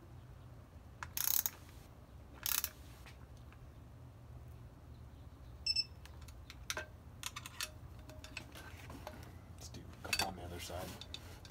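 Ratchet on a digital torque adapter clicking in two short bursts while tightening rotor-ring bolts, then a short high electronic beep about six seconds in: the adapter signalling that the set torque of 120 inch-pounds has been reached. Light tool clicks follow.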